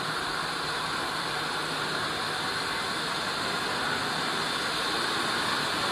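Steady hum and hiss of cable-making machinery running in a factory hall, even throughout with a faint low drone.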